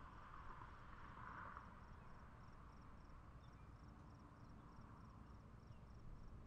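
Faint summer-evening insect sound: a cricket chirping in an even, high-pitched rhythm of about three chirps a second, over a low background rumble and a soft hazy chorus that fades a little after the first second and a half.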